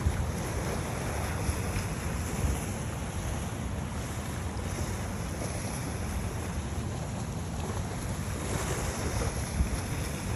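Wind buffeting the microphone in a steady low rumble, over small waves washing up on a sandy beach.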